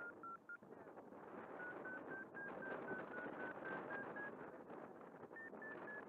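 Short electronic beeps, about three or four a second, in runs with pauses between, their pitch drifting slightly up and down. A steady rush of wind on the microphone lies underneath.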